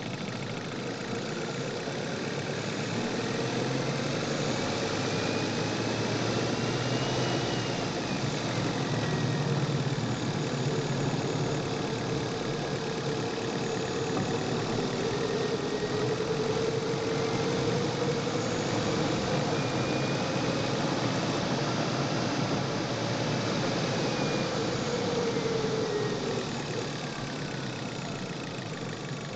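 Chevrolet car engine recorded from the engine bay while driving, running steadily with its pitch slowly rising and falling as the throttle changes. It eases off and gets quieter near the end.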